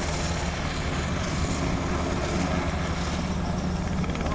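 Helicopter running steadily, a constant drone of engine and rotor.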